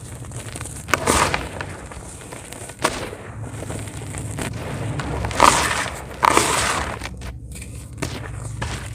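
Dry pure cement crumbling and breaking onto wet cement paste: several crunching, crackling breaks, the loudest about a second in and again from about five to six and a half seconds in, over a steady low rumble.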